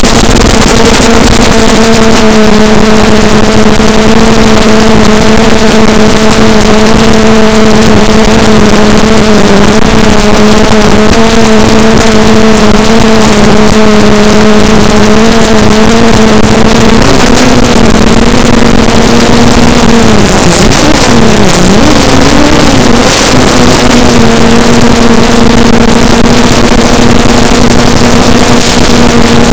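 Quadcopter's four EMAX MT2204-2300KV brushless motors and 5040 propellers buzzing loudly in flight, a steady pitched drone over a hiss of air, while the quad holds a steady throttle under GPS return-to-home. Around two-thirds of the way through the pitch wavers, dips down and comes back up, then holds steady again.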